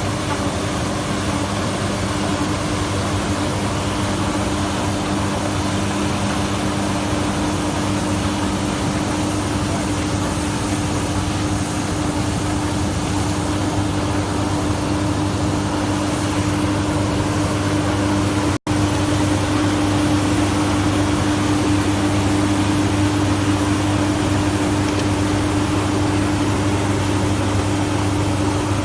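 Machinery running with a steady hum at a few fixed low pitches over an even noise, cut off for an instant about two-thirds of the way through.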